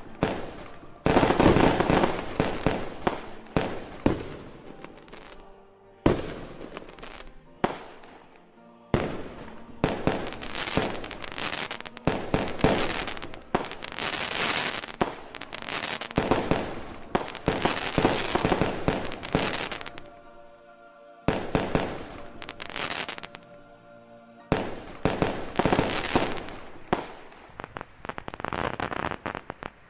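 Aerial fireworks shells bursting one after another, with sharp bangs and crackling. The barrage thins out twice, briefly.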